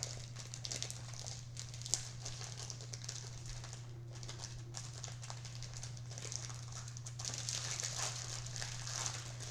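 Plastic snack wrapper crinkling and crackling as it is handled and opened, with a sharp click about two seconds in. A steady low hum runs underneath.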